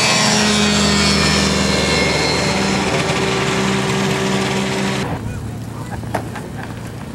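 A TEAM Mini-Max-type ultralight's engine and propeller running at full power on a low pass, its pitch sliding down slightly as it goes by. About five seconds in the sound cuts off abruptly to a quieter open-air background with a few light clicks.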